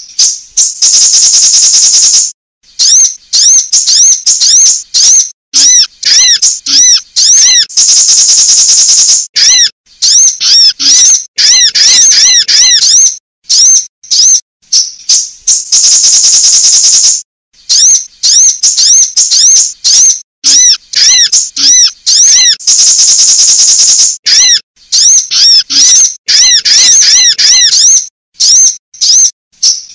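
Sunbird calls: rapid high-pitched chirping phrases broken by short gaps, with a long high buzzy trill about every seven seconds, loud and clipped.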